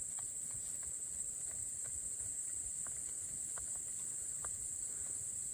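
Steady high-pitched chorus of insects chirring, with a few faint ticks scattered through it.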